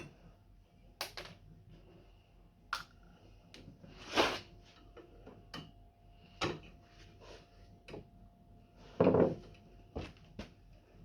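Handling noises of repair work: scattered clicks and knocks, with two longer, louder clattering bursts about four and nine seconds in.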